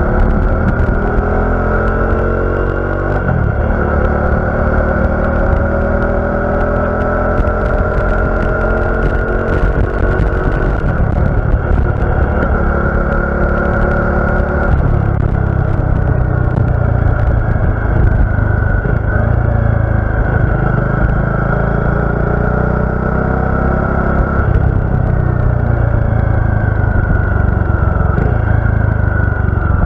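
Bajaj Dominar 400's single-cylinder engine and exhaust under way, rising in pitch under throttle and dropping at a gear change about three seconds in, with further changes in engine note around fifteen and twenty-five seconds.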